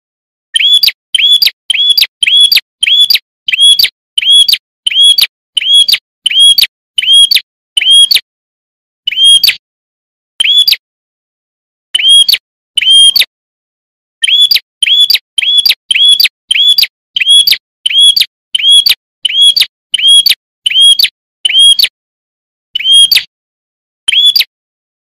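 Prinia (prenjak) calling: a single clear, whistled note repeated about twice a second in runs, broken by gaps of a second or two.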